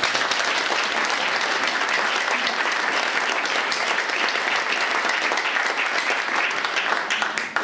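Concert audience applauding: dense, steady clapping that dies away quickly near the end.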